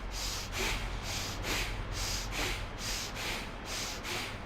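A man breathing forcefully in and out through the nose in a quick, even rhythm, about two breaths a second: a pranayama breathing exercise being shown.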